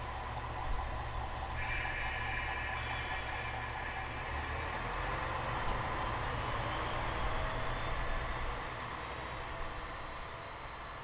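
KiHa 47 diesel railcar's engine running steadily as the train moves slowly away, growing a little louder and then fading over the last few seconds.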